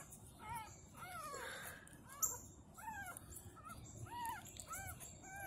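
An 11-day-old American Pit Bull Terrier puppy whimpering: a string of short, high, squeaky cries, about two a second, each rising then falling in pitch.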